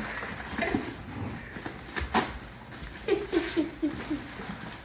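Cardboard packaging rustling and knocking as a camcorder is pulled out of its box, with two sharp clicks about two seconds in. A short run of quick laugh-like vocal sounds follows about three seconds in.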